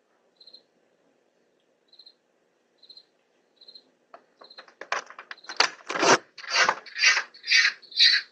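Crickets chirping about once a second. About four seconds in, rhythmic crunching or rustling sounds start at about two a second and grow quickly much louder, becoming the loudest thing heard.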